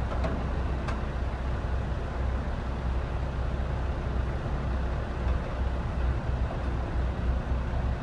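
A vehicle engine running steadily, a low rumble under a noisy hiss, with a faint click about a second in.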